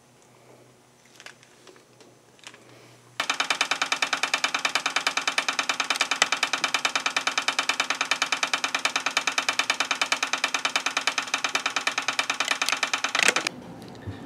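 Model steam engine running on compressed air instead of steam: a fast, even beat of exhaust puffs and clattering piston and crank. It starts suddenly about three seconds in and cuts off suddenly just before the end.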